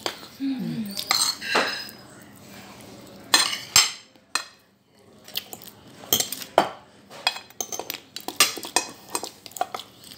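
Metal forks and spoons scraping and clinking against plates while eating, in many short irregular clicks that come thickest in the second half.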